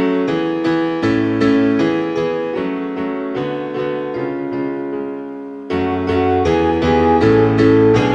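Instrumental piano break in a slow lullaby song, notes struck one after another and left to ring. About six seconds in the playing grows louder and deeper bass notes join.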